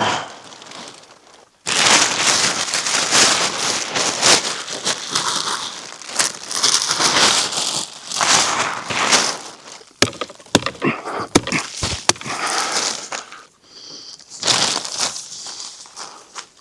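Small waterproof tarp rustling and crinkling in uneven bursts as it is unfolded and handled, with a few sharp snaps a little past the middle.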